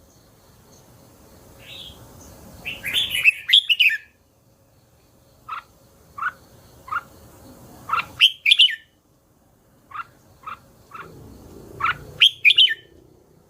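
Red-whiskered bulbul singing: loud warbled phrases about three, eight and twelve seconds in, with short single notes in between.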